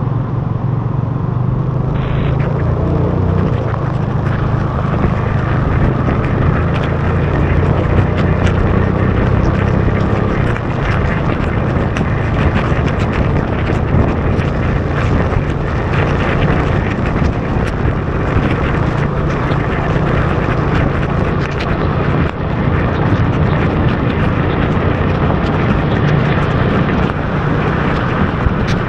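Motorbike riding steadily through heavy rain: a loud, even rumble of the engine and wind on the microphone, with tyres running through water on the flooded road and many small taps of raindrops hitting the camera.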